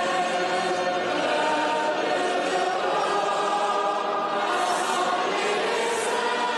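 A choir sings a slow hymn in chant style as the clergy's procession enters, sustained voices at a steady level.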